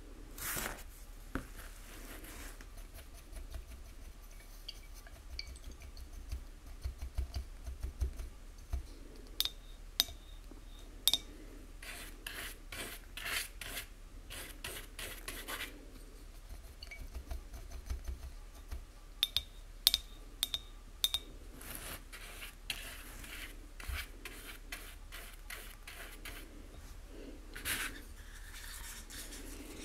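Faint sounds of painting by hand: a paintbrush's bristles scratching and rubbing, and a brush rinsed in a glass jar of water, clinking against the glass in short ringing taps a few times.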